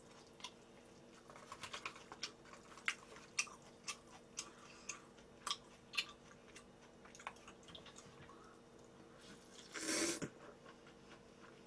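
Close-miked mouth sounds of eating: chewing with many small wet clicks, then, about ten seconds in, one loud slurp as a mouthful of cold buckwheat noodles (bibim naengmyeon) is sucked in.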